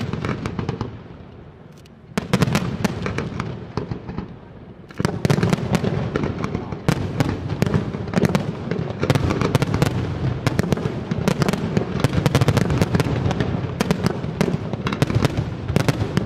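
Fireworks display: aerial shells bursting in quick volleys of sharp bangs and crackle. Two short volleys give way, about five seconds in, to a continuous barrage.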